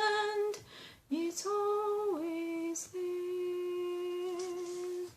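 A woman singing solo and unaccompanied, drawing out a few long held notes with short breaks between them.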